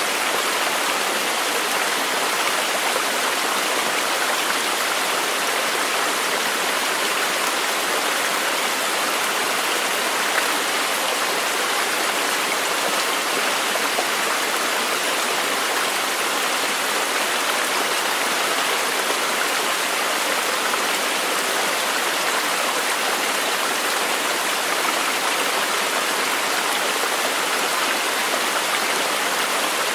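Steady, even rush of water, unbroken and unchanging throughout.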